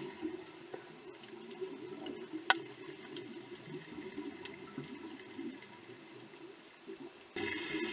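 Underwater ambience picked up by the camera: a steady low rush of water with scattered faint clicks, one sharp click about two and a half seconds in, and the water noise growing louder near the end.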